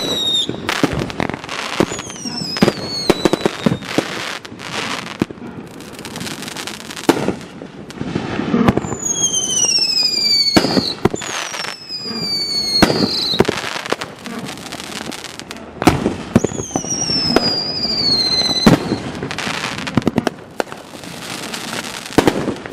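Firework cake of red, white and blue peony shells firing: repeated launch thumps and sharp burst bangs, with several whistling tones that fall in pitch as shells go up.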